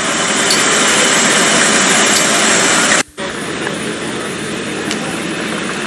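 Diesel train running at the platform, a loud steady engine noise. About three seconds in, the sound drops out for an instant at a tape cut and comes back as a quieter steady train noise.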